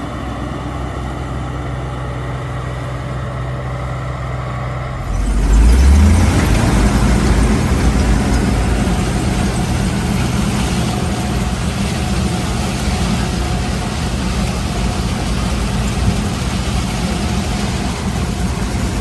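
International 1480 Axial-Flow combine running: a steady low engine hum, then about five seconds in a sudden jump to a louder, rushing machine sound as the engine note briefly rises, and that louder running holds steady.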